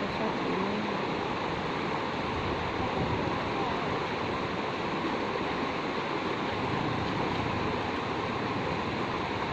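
Shallow, rocky river rushing over stones: a steady rush of water with no breaks.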